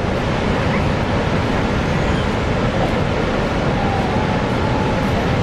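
Steady roar of Niagara Falls' falling water: an even, unbroken rushing noise.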